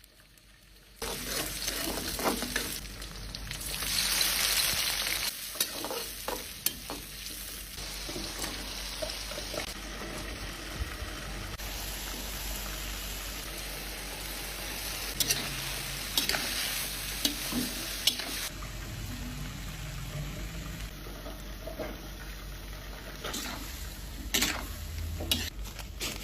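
Stir-fry sizzling in hot oil in a pan, with the scrape and clicks of a spatula stirring it. The sizzle starts abruptly about a second in and swells briefly a few seconds later.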